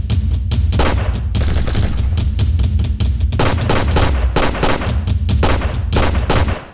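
Rapid handgun gunfire in a shootout: many sharp shots, several a second with short gaps, over a steady low rumble. It cuts off abruptly near the end.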